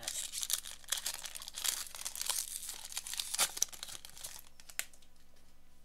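Plastic wrapper of a Panini Score football card pack being torn open and crinkled for about four and a half seconds, then a single click near the end.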